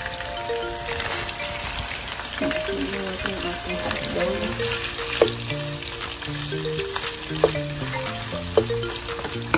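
Ground pork and sliced hotdogs sizzling in oil in a nonstick frying pan while being stirred with a wooden spatula, which clicks sharply against the pan three times in the second half.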